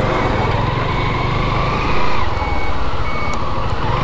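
Motorcycle ride through road traffic: engines running steadily while a high electronic beeper sounds over and over, a little faster than once a second. An engine note rises and falls about halfway through and again near the end.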